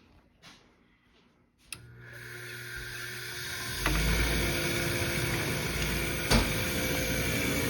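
Carrier gas furnace starting up. A click comes just under two seconds in, then a motor spins up and settles into a steady hum and whir, and a second sharp click follows a few seconds later.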